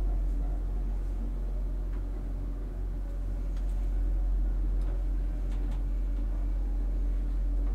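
1997 KONE Novel hydraulic elevator heard from inside its car while travelling: a steady low hum from the hydraulic drive, with a few faint clicks.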